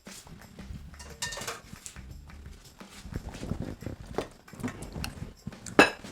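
Kitchen utensils knocking and clinking against a pot and strainer while the boiled cabbage drink is strained, with one loud clank near the end.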